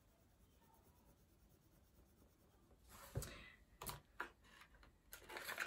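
Faint crayon-on-paper scratching while colouring, then from about three seconds in a thump followed by sharp clicks and rustles as the cardboard crayon box is handled.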